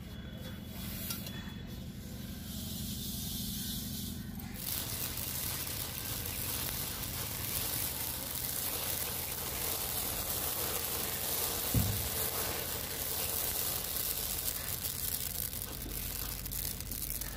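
Amaranth grains popping and rustling as they are dry-roasted in a large iron kadhai and swept around with a cotton cloth: a dense, steady crackling hiss that comes in about four seconds in, after a low steady hum. There is one short low thump about twelve seconds in.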